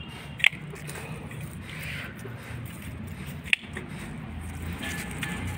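Two sharp snips of hand pruning shears cutting through rose stems, about three seconds apart.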